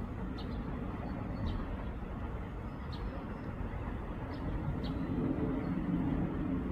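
Steady low rumble of city traffic, swelling for a couple of seconds in the second half, with a few short high bird chirps scattered through it.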